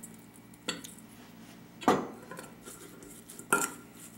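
A metal spoon clinking against a stainless steel mixing bowl while stirring cubed raw fish: three sharp clinks, the last two loudest, the last leaving the bowl ringing briefly.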